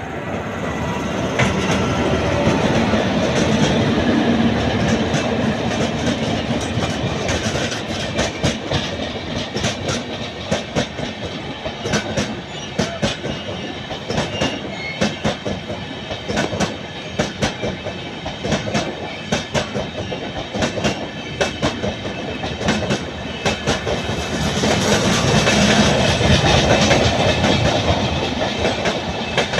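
Express train of LHB passenger coaches passing close at speed: a steady rumble with repeated clacks as the wheelsets run over rail joints, swelling again near the end.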